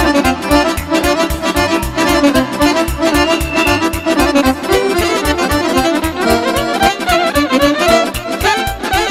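Instrumental passage of Romanian muzică de petrecere: a fast accordion melody in quick runs over a steady, driving bass beat.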